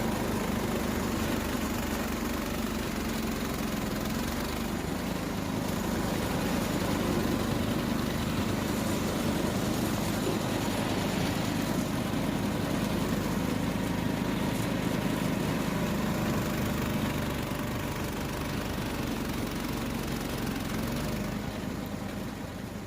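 Case Ingersoll garden tractor engine running steadily, fading out near the end.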